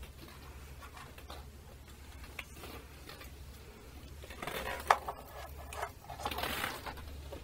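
Plastic ball-pit balls clattering and rustling as a toddler moves among them, with one sharp click about five seconds in, over a faint steady low hum.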